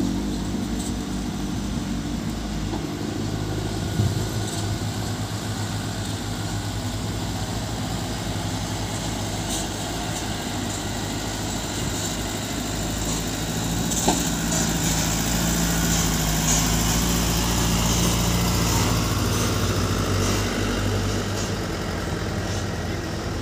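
Diesel light trucks' engines running as they drive past on a gravel road. The sound grows louder partway through as one passes close by, then eases as the next approaches.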